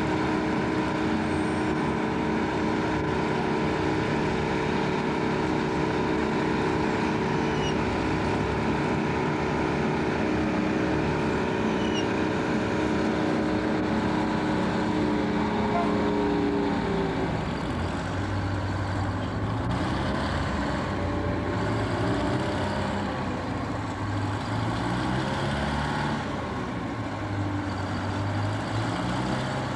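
Heavy engine of pile-driving equipment running steadily at one pitch, then from about 17 seconds in its pitch rises and falls repeatedly as it works.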